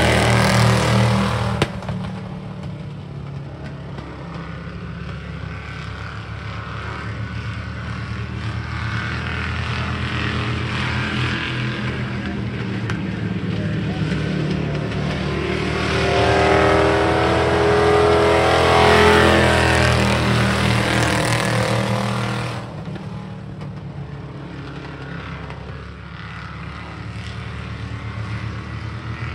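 Several race pickup trucks' engines running hard around an oval track. It is loudest as a truck goes by close at the start, swells again in the middle, and drops off abruptly twice.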